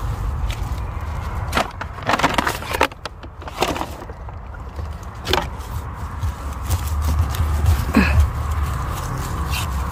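Dry twigs and leaf litter crackling and snapping underfoot on the forest floor, in a handful of short crunches with a denser cluster about two seconds in, over a steady low rumble on the microphone.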